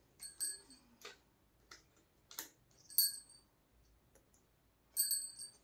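Small hard objects being handled and set down: scattered light clicks and taps, with three short clusters of high ringing chinks, one near the start, one in the middle and one near the end.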